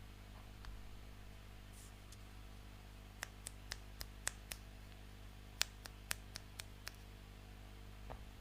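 Plastic toy pieces being handled, giving about a dozen small sharp clicks in two quick runs between about three and seven seconds in, over a low steady hum.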